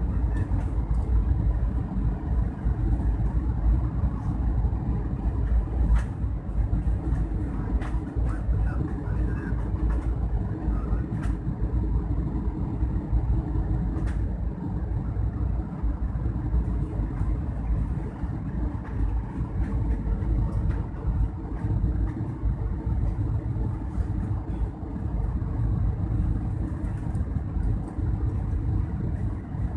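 Steady cabin noise of an Airbus A320-200 on approach: engine hum and airflow rumble heard from inside the cabin, with a few faint clicks.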